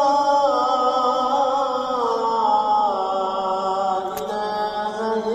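A single voice chanting Arabic Islamic recitation in the mosque's prayer hall, holding long melodic notes that step slowly down in pitch. There is a brief click about four seconds in.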